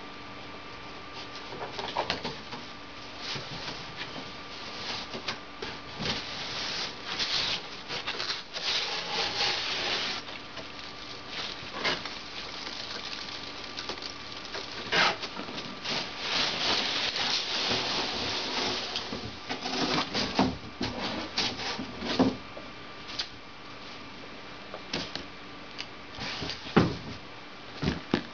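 A cardboard shipping box being opened by hand: a box cutter slitting the packing tape, cardboard flaps pulled open, and loose foam packing peanuts rustling as a hard plastic carrying case is dug out. Scattered sharp knocks and scrapes come from the case and box being handled, the loudest near the end.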